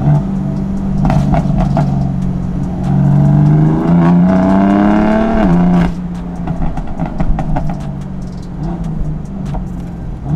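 BMW M4's S55 twin-turbo straight-six, with a downpipe and stage 1 MHD pops-and-bangs tune, heard from the open-top cabin. It accelerates with a rising note for about three seconds, then comes off the throttle about six seconds in, and the exhaust crackles and pops on the overrun.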